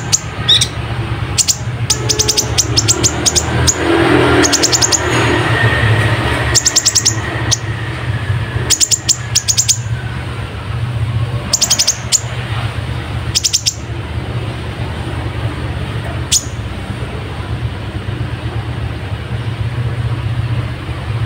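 Kolibri ninja (konin) sunbird singing: repeated bursts of rapid, very high chips and trills, with one falling note near the end. A steady low hum runs underneath.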